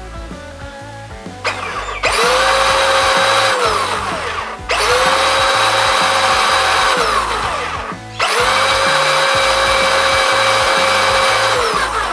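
Small DC drive motor and gearbox of a child's electric ride-on tractor, overvolted on a 12-volt battery in place of its stock 6-volt pack, whining at speed. It runs three times, starting about two seconds in, and the pitch falls as each run winds down.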